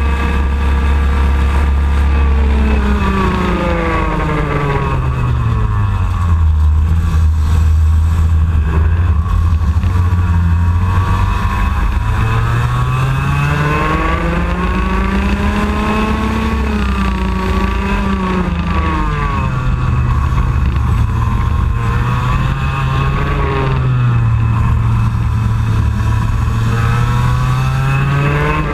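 IAME X30 125cc two-stroke kart engine running at race pace. Its pitch drops as the kart slows for corners and climbs again under acceleration, several times over.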